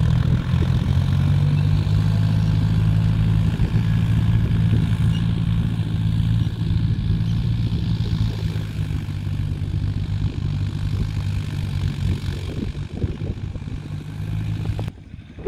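Tractor engine running steadily under load while ploughing a wet field, a continuous low drone with rough, churning noise over it; it eases a little about halfway and cuts out briefly near the end.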